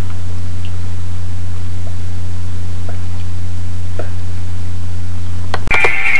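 Loud, steady low electrical hum with faint hiss over it and a few faint ticks; it breaks off with a click near the end.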